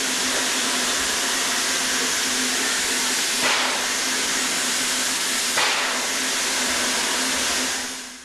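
Steam locomotive hissing steadily as steam escapes from its side, swelling briefly louder three times. The hiss falls away near the end.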